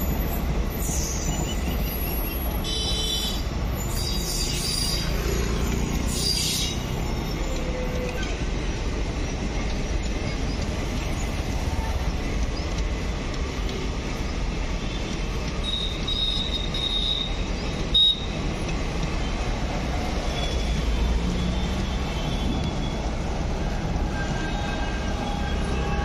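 Indian Railways passenger train of ICF coaches passing: a steady rumble of coach wheels on the rails, with brief high-pitched wheel squeals now and then and a single sharp knock about eighteen seconds in.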